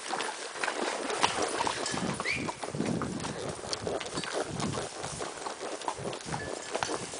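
Hoofbeats of saddle horses walking under riders on a trail, an irregular run of hoof strikes. A short rising squeak about two seconds in.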